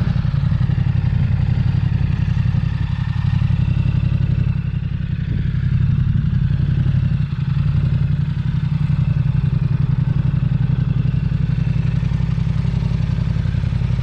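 2019 Yamaha MT-07's parallel-twin engine idling steadily through a newly fitted Shark DSX-10 full exhaust system.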